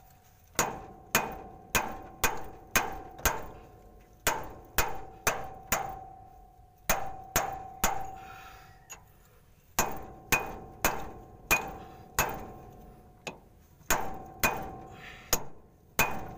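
Hammer tapping a steel punch held against the rim of a truck gearbox's output-shaft housing, about two blows a second, each hit ringing briefly with a metallic tone. The blows come in runs with short pauses between them.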